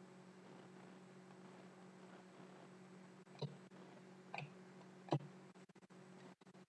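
Near-quiet room tone with a faint steady hum, broken by three soft clicks about a second apart as trading cards are handled.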